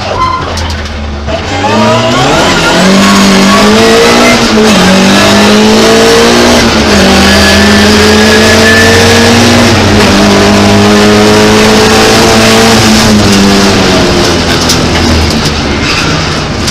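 Opel Ascona rally car's engine heard from inside the cabin, accelerating hard from low revs, then running near full revs with brief drops in pitch at gear changes, before easing off near the end.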